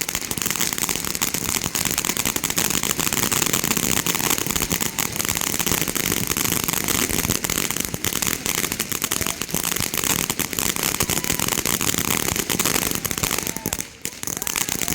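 Fireworks crackling in a dense, rapid, unbroken run of small bangs, with a brief lull just before the end.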